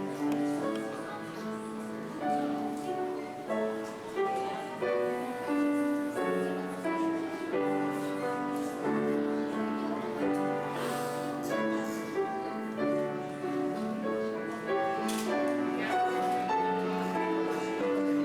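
Instrumental music of held notes and chords, the chords changing about every second.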